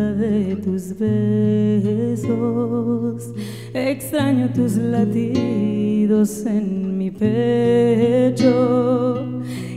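Woman singing a slow, sustained melody with vibrato, accompanied by a classical guitar.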